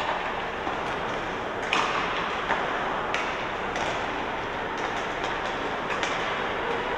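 Youth ice hockey game: a steady wash of rink noise with a string of short, sharp knocks and clacks, the strongest about two seconds in and again about three seconds in.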